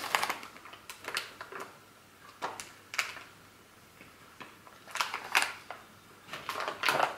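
Paper bag crinkling and rustling in short bursts, several times over, as it is lifted, tipped over a bowl and put down.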